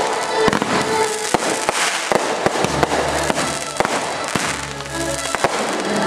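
Aerial fireworks going off: a rapid, irregular series of sharp bangs from bursting shells. Music plays underneath, plainer in the second half.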